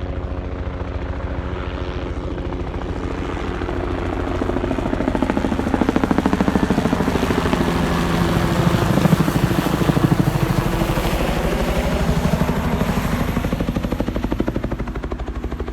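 Helicopter flying over with a fast, steady rotor beat that swells to its loudest around the middle and eases off toward the end. It is flying aerial seeding over the site.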